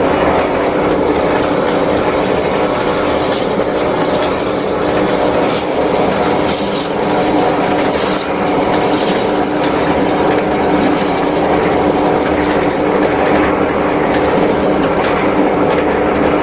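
Metal lathe running under cut, its tool turning a taper on a pulley: a steady machine hum with a high metallic squeal from the cut. The squeal drops out briefly twice near the end.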